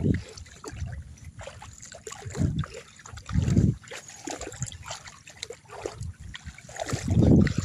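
Muddy water in a flooded rice paddy splashing and trickling, with several dull low thumps, the loudest about three and a half seconds in and near the end.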